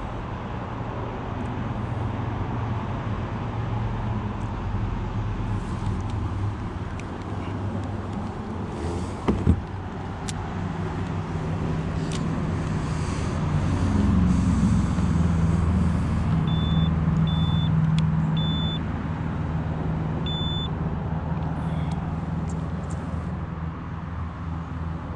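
A steady low engine drone whose pitch briefly rises and falls about fourteen seconds in. One sharp thump comes about nine seconds in, and four short high beeps sound a few seconds later.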